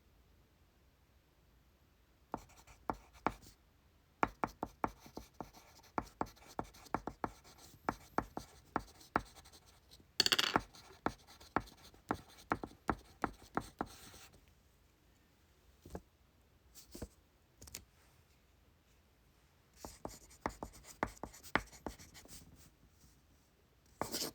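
Pencil writing on paper: quick scratching strokes in spurts, with pauses between, and a brief louder rustle about ten seconds in.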